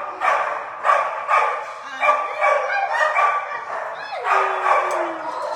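Shelter dogs barking repeatedly in their kennels, about two barks a second, with one long falling whine about four seconds in.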